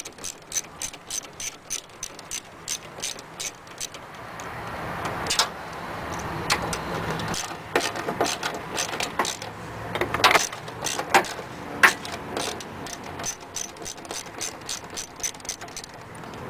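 Ratchet with an 8 mm socket clicking steadily, about three or four clicks a second, as it backs out the tail-light bolts on a Ford F-150. After about four seconds the ratcheting gives way to a louder stretch of irregular clicks and knocks.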